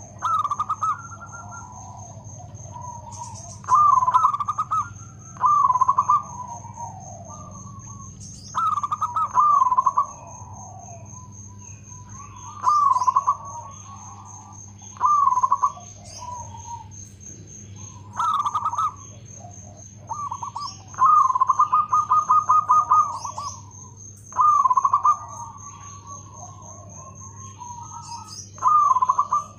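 Zebra dove (perkutut) singing: short phrases of rapid, staccato cooing notes, repeated about every two to three seconds.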